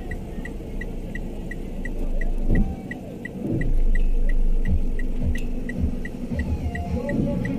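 A short high electronic beep repeating evenly about three times a second over a low rumble and hum, with a few dull thuds after the middle.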